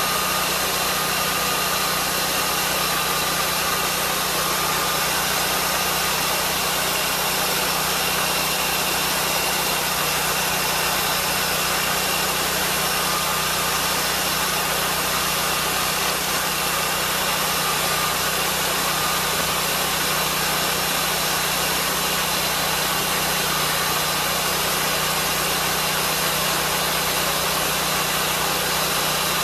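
Lucas swingblade sawmill running steadily, its petrol engine driving the circular blade as the carriage is pushed slowly through a log, sawing a cant. The sound stays even, with no change in pitch or level.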